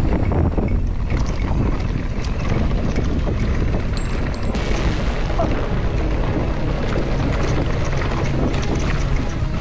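Wind buffeting the camera microphone over the rumble and rattle of a Forbidden Druid mountain bike running fast down a rough dirt-and-grass downhill track.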